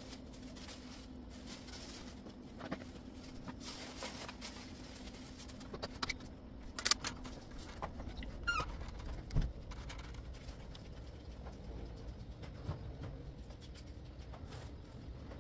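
Household cleaning and handling noises: debris tipped from a plastic dustpan into a plastic bag, then scattered clicks and knocks as the camera is picked up and moved, with one heavy thump about halfway through. A faint low hum stops about seven seconds in.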